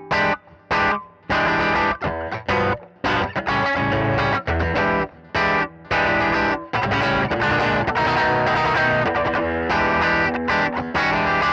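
Electric guitar from a Strat-style guitar played through a mini pedalboard with an Azor compressor pedal switched on, into an amp recorded direct with a speaker-cabinet impulse response. Short chopped chords with gaps between them at first, then longer ringing phrases with brief pauses.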